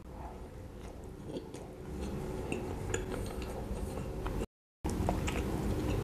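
Close-miked biting and chewing of a soft steamed bun with corn filling: soft wet mouth sounds with small clicks. The sound cuts out completely for a split second about four and a half seconds in.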